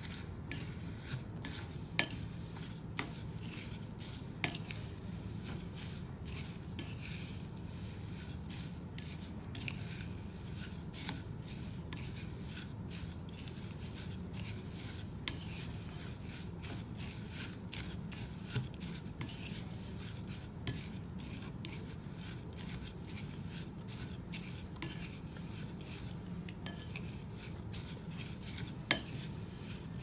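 Silicone spatula stirring flattened rice (poha) in a glass bowl: a steady run of light scrapes and clicks, with a few sharper knocks against the glass, over a low steady hum.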